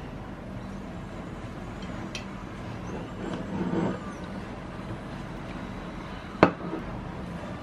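A ceramic plate with a fork on it pushed across a wooden desk: a short scrape a little past three seconds in, then one sharp knock about six and a half seconds in, over a steady low background hum.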